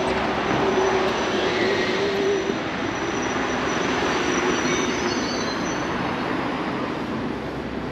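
A train running past with a steady rumble and a thin high-pitched squeal above it, easing off slightly near the end.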